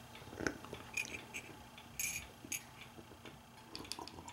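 Faint, irregular clicks and light taps of a ceramic mug being picked up and handled before a sip.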